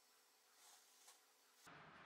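Near silence: faint room tone with a few soft, faint ticks, and the background hiss rises suddenly near the end.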